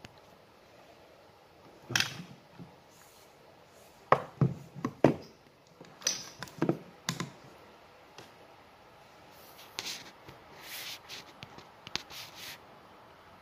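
Knocks and clacks of PVC pipe fittings being handled and set down: one around 2 s, a cluster between about 4 and 7 s, then a few short scraping sounds near the end.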